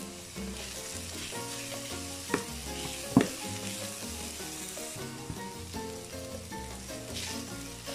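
Diced onion, garlic and ginger sautéing in hot oil in an aluminium pot, sizzling steadily while a metal ladle stirs them. There are two sharp clicks of the ladle against the pot, the louder one about three seconds in.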